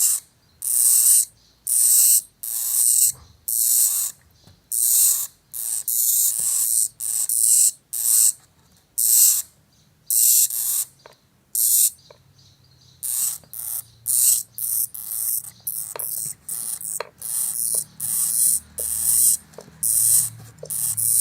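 Hamster hissing, or huffing, in a steady run of short breathy bursts, about one or two a second. Faint short clicks come between the bursts in the second half.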